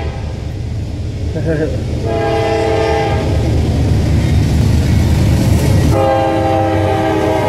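Norfolk Southern diesel freight locomotives approaching with a deep engine rumble, the lead unit sounding its air horn as a chord of several notes: a blast at the start, another from about two to three seconds in, and a longer one near the end as it comes level.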